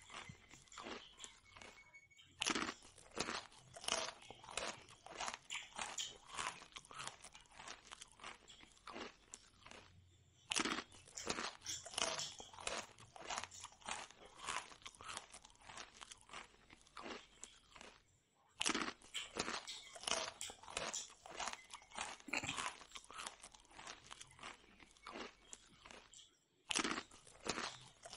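Close-miked chewing and crunching of fried puri: a dense, irregular run of crisp crunches. It drops out briefly about every eight seconds.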